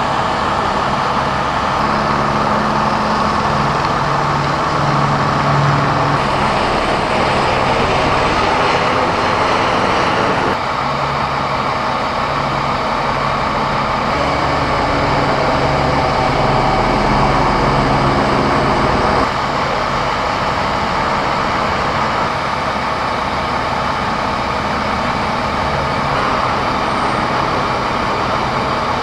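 Steady engine drone with a low hum, changing abruptly twice, about ten seconds in and again near twenty seconds.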